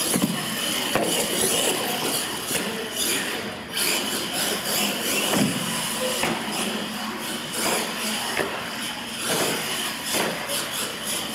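Radio-controlled monster truck running over ramps on a concrete floor: a steady motor-and-gear whine with several sharp knocks and clatters as it lands and tumbles, over people talking in the background.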